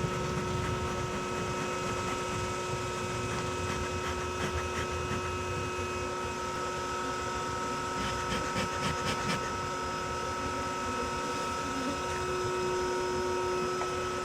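Bee vacuum's motor running with a steady whine, pulling honeybees up a pipe; a quick run of clicks and rattles about eight seconds in.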